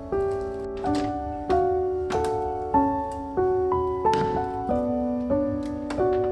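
Background piano music: a gentle melody of notes and chords struck about every half second to a second and left to ring.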